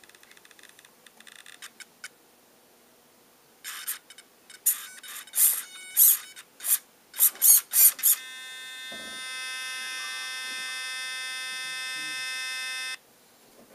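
Losi Mini 8ight RC car's motor and ESC whining under light throttle: a string of short high-pitched squeals, then a steady high-pitched whine held about five seconds that cuts off suddenly. The owner hears this noise only at part throttle or steering, never at full, and wonders whether it is normal.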